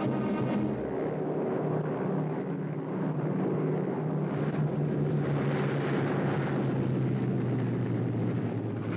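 Propeller airliner's engines running with a steady drone.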